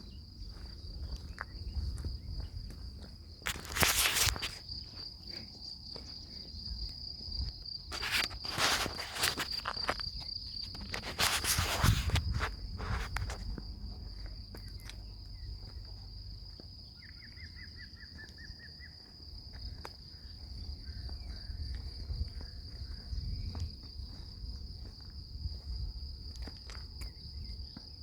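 A steady, high insect trill, cricket-like, that stops about a third of the way in and returns near the end, with footsteps and rustling on the ground in three louder bursts. About two-thirds of the way through comes a short rapid series of higher notes.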